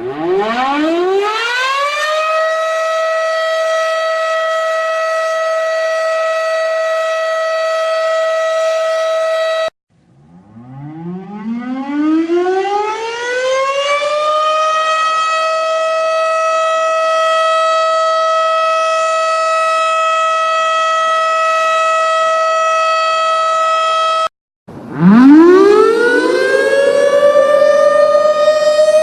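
Synthesized single-tone 12-port siren sounds, played three times in a row. Each winds up in a rising whine to the same steady, high, overtone-rich tone and holds it, then cuts off abruptly. The second winds up more slowly than the first, and the third starts near the end and is still rising.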